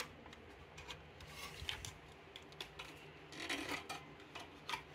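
Faint scattered clicks and light scraping of a Macintosh SE's sheet-metal chassis and drive bracket being handled and fitted together, with a slightly louder rub a little past three seconds in.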